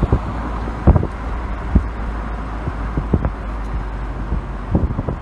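Low, steady road rumble of a moving car heard from inside, with wind rushing over the phone microphone and a few sharp thumps of wind buffeting.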